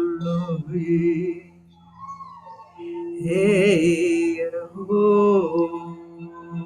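Wordless vocal toning: long held sung notes that bend and waver in pitch, over a steady low drone. The voice dips briefly about two seconds in, then swells with a strong vibrato about three seconds in.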